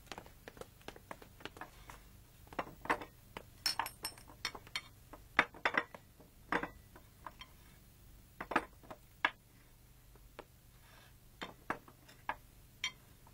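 Dishes and glasses clinking and knocking as they are set out on a table, in an irregular run of sharp clinks that is busiest in the first half and thins out later.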